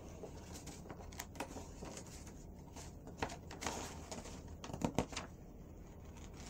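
Pages of a picture book being turned and handled: a series of faint paper rustles and soft flicks, the loudest about five seconds in.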